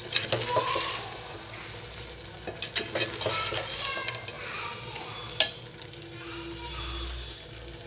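A steel spoon stirs and scrapes Maggi noodles in a metal pot on a gas burner, with the wet masala sizzling under the scattered clinks of spoon on pot. There is one sharp, louder clink about five and a half seconds in.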